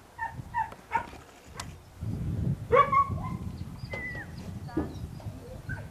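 Outdoor field ambience: wind rumbling on the microphone, with small birds chirping and one louder short call about three seconds in.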